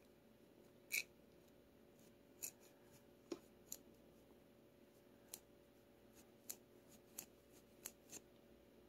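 Faint, sharp clicks of a hard plastic manual finger massager being handled and worked over a finger: about ten scattered clicks over several seconds, the loudest about a second in, over a faint steady hum.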